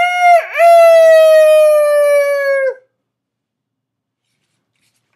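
A person's vocal impression of a rooster crowing cock-a-doodle-doo, ending on one long, loud held note that slowly drops in pitch and stops about three seconds in.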